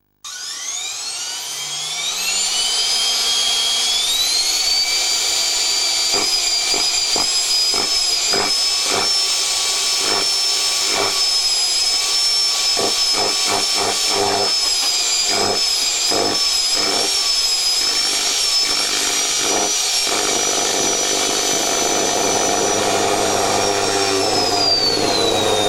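Vacuum cleaner motor starting up, its whine rising over the first few seconds to a steady high-pitched scream. Irregular clicks sound through the middle stretch, and near the end the pitch falls away.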